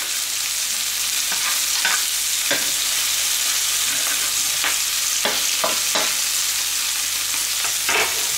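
Beef burger patty sizzling steadily in a frying pan just after being flipped, with a few sharp crackles scattered through.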